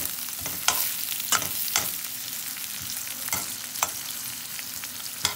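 Halved habanero chiles and chopped onion sizzling in hot oil in a frying pan, with about six sharp knocks and scrapes of a utensil against the pan as they are stirred. The onion is being pan-fried until lightly charred for a salsa.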